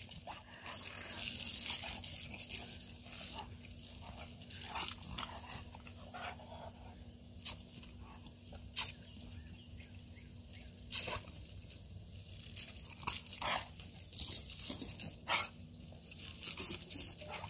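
A large dog lunging and biting at the water stream from a garden hose, making short barks and noises at irregular intervals.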